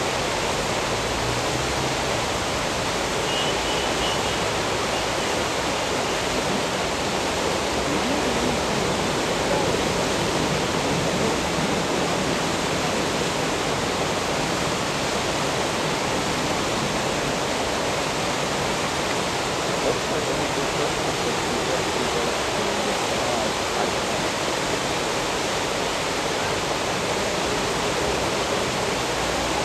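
Steady rush of turbulent water churning through a mass of floating plastic bottles and balls.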